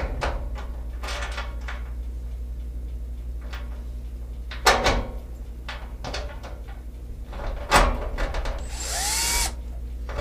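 Cordless drill driving screws into a wall heater's bottom edge, the motor running in short spurts with a few sharp clicks. Near the end there is a brief higher whine that rises and falls.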